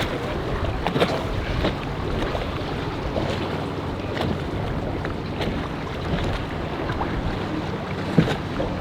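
Boat engine running steadily, with wind on the microphone and a few sharp knocks, the loudest near the end.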